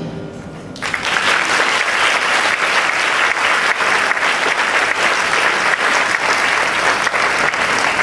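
The wind band's final chord dies away in the hall, and about a second in an audience breaks into steady applause.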